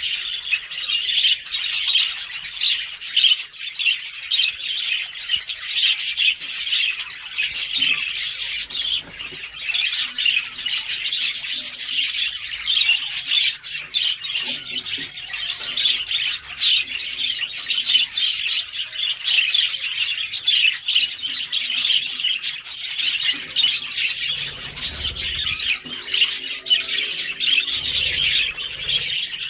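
A flock of budgerigars chattering and chirping continuously, many quick high calls overlapping without a break.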